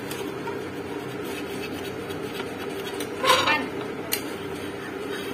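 Metal spatula and tongs clinking and scraping on a dosa tawa over a steady hum. A short voice-like sound breaks in about three seconds in, followed by a sharp click.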